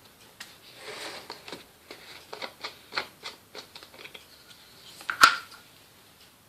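Siemens washing machine at the start of its main wash: a run of irregular clicks and short swishes, with one sharp click about five seconds in.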